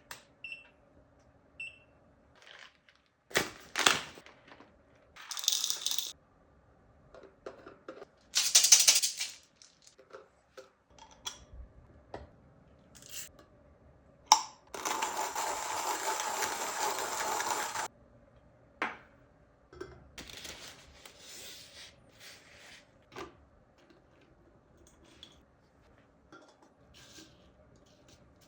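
Close-up handling of coffee gear: a series of clinks, taps and rustles, with one steady rushing hiss lasting about three seconds near the middle.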